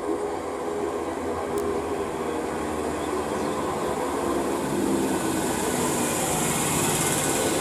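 Class 317 electric multiple unit pulling into the platform and slowing to a stop: steady motor and gear hum over wheel rumble, with a hiss building over the last few seconds.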